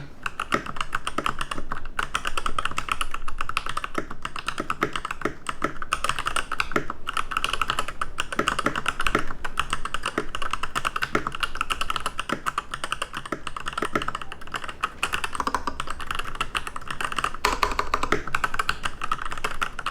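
Typing on a Varmilo Summit 108 mechanical keyboard fitted with Sakura EC2 capacitive linear switches: a steady, fast run of keystroke clacks. The switches feel buttery smooth and give no metallic ping.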